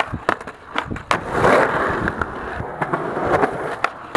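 Skateboard wheels rolling on rough concrete, broken by several sharp wooden clacks of the board popping and landing on ollies, with a louder scraping rush about a second and a half in.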